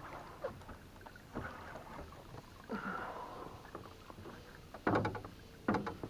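Water lapping against the hull of a small aluminium boat, with scattered short knocks and handling noises, the two loudest near the end.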